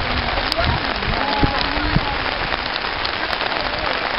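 Steady rushing noise on the microphone, with faint voices in the background.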